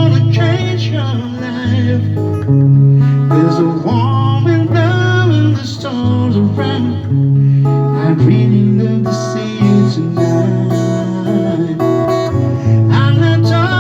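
Acoustic guitar playing an instrumental passage of a soft-rock ballad, with bass notes under a moving melody line.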